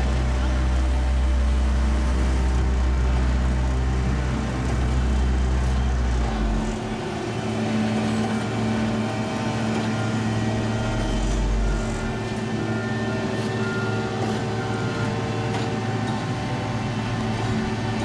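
Diesel engines of an asphalt paver and the dump truck feeding it running steadily during street paving, with a deep low rumble that drops away about six and a half seconds in.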